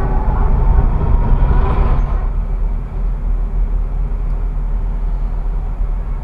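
Tram traction motors whining with a slowly rising pitch as the tram gathers speed, over a low running rumble in the driver's cab. About two seconds in the whine stops and only a steady low rumble remains.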